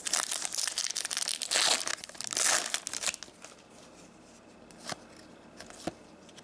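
Shiny foil wrapper of a hockey card pack being torn open and crinkled for about three seconds, then a few soft clicks as the cards are handled.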